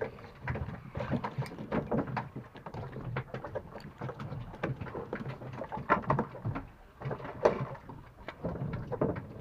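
Small fishing boat on a choppy sea: water slapping against the hull, with irregular knocks and clatter over a low rumble.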